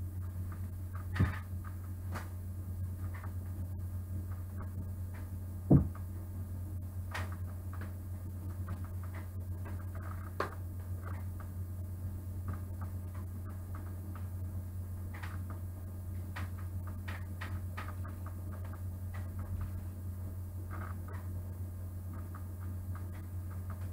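Small figurines, a wooden cutout and a book being handled and set down on a cloth-covered table: scattered light taps and clicks, with two louder knocks about one second and about six seconds in, over a steady low hum.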